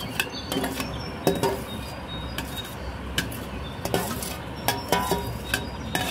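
Metal spoon and steel bowl clinking and scraping against each other and the rim of a glass serving bowl as creamy fruit cocktail is dished out, with a handful of sharp clinks at irregular moments.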